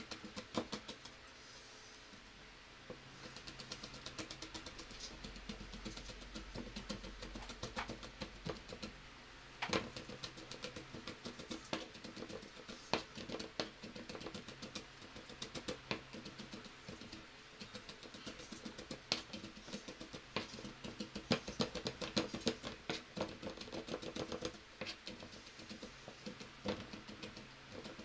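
Cleaver mincing garlic on a plastic cutting board: a fast run of light taps of the blade on the board, with a few harder knocks.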